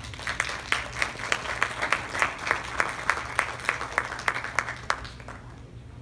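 Small audience applauding, with individual claps standing out, dying away about five seconds in.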